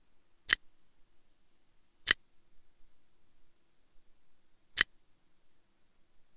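Three sharp single clicks of a computer mouse button, the second about a second and a half after the first and the third nearly three seconds later, over a faint steady electrical hum.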